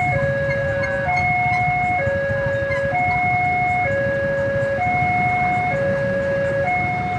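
Railway level-crossing warning alarm sounding: an electronic two-tone signal alternating steadily between a higher and a lower note, each held just under a second, warning of an approaching train. Beneath it is the low rumble of idling motorcycles and cars waiting at the crossing.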